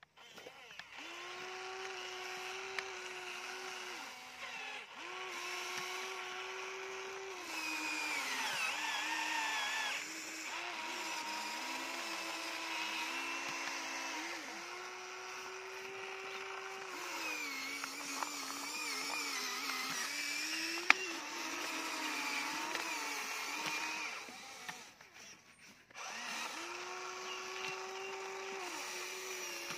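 Electric motors of a Huina radio-controlled toy excavator whining as it works its arm and bucket, the pitch stepping up and down as different functions start and stop. One sharp click comes about two-thirds through, and the motor sound drops away briefly late on.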